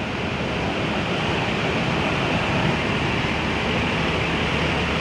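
Steady machinery rumble and hiss on a ferry's enclosed vehicle deck, growing a little louder during the first second and then holding even.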